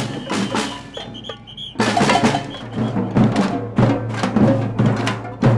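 Children's street-parade drum band beating metal-shelled marching drums with sticks in a fast, steady rhythm. It starts quietly, with a few short high whistle blasts, then the full band comes in loudly just under two seconds in.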